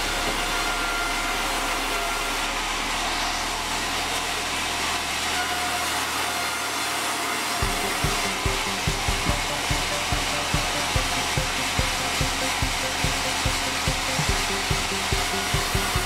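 Band sawmill running with a steady whirring hiss. About halfway through, regular low thumps, two to three a second, begin and keep going under it.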